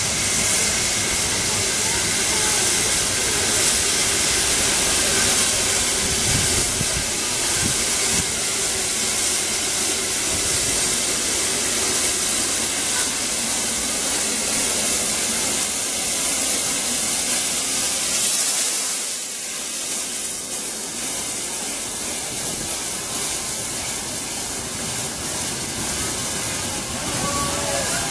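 Steam hissing steadily from the LNER Peppercorn A1 steam locomotive 60163 Tornado, easing off a little about two-thirds of the way through.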